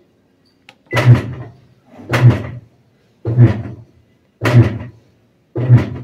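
Magic Queen Evoluzione 9 SX top-load washing machine's agitator motor pulsing in short alternating strokes, five clunks with a brief hum about every 1.2 seconds: the start of agitation, running normally without the intermittent fault.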